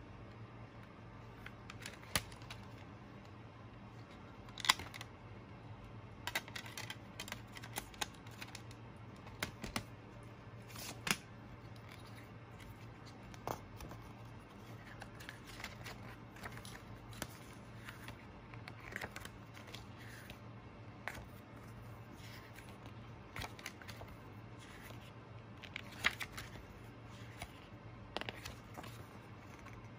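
Handling a plastic CD jewel case and leafing through its paper booklet: scattered light clicks, taps and paper rustles, a few of them sharper, over a steady low hum.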